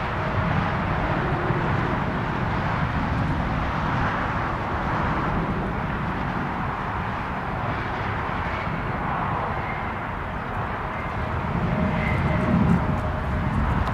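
Airliner engine noise: a steady rumble with no clear start or stop.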